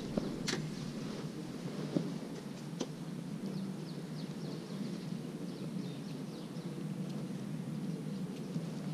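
Quiet outdoor ambience: a steady low background rumble with faint, short bird chirps and a few light clicks.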